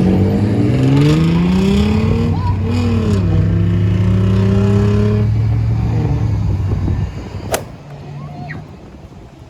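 Road traffic: a car engine accelerating, its pitch climbing, dropping briefly at a gear change about two and a half seconds in, then holding steady before fading out about seven seconds in.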